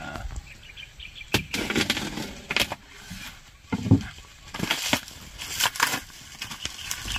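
Black plastic parcel wrapping being handled and torn open around a cardboard box: irregular crinkling and tearing, with a dull thump about four seconds in as the parcel is set down on the wooden floor.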